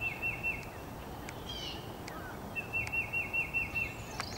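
A songbird singing a quick run of five or six slurred, whistled notes, once at the start and again near the end, with a few other short chirps in between, over faint outdoor background noise.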